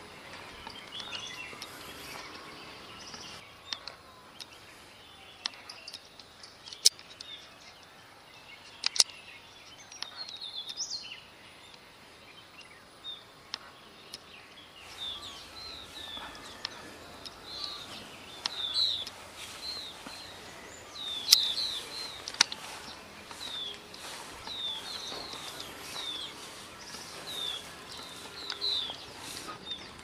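Small songbirds calling: short, high, falling chirps, sparse at first and then repeated about once a second from about halfway through, over a steady outdoor hiss. A few sharp clicks stand out as the loudest sounds.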